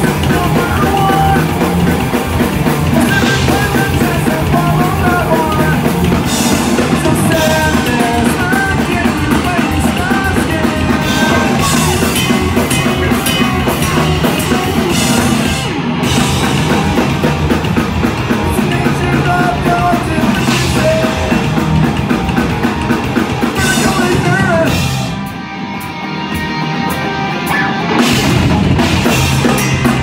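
Punk rock band playing live, with distorted electric guitars, bass and a drum kit. About 25 seconds in the cymbals drop out for a brief quieter break, then the full band comes back in.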